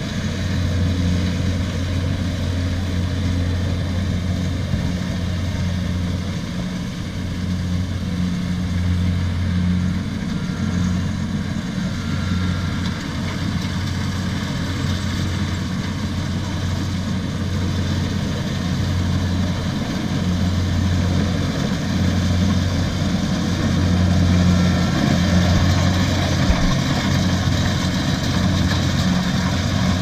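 Kubota DC70 rice combine harvester's diesel engine running steadily under load as it cuts and threshes, a low hum with a rushing wash of machinery noise. It grows a little louder in the second half as the machine comes closer.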